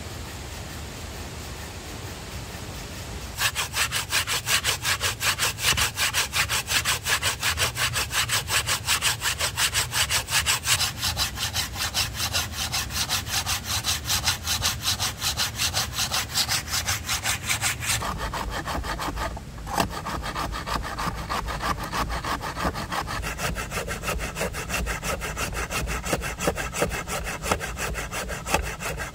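Hand saw cutting through wood with quick, regular strokes, starting a few seconds in after a steady hiss. The stroke sound changes about two-thirds of the way through, with a brief break.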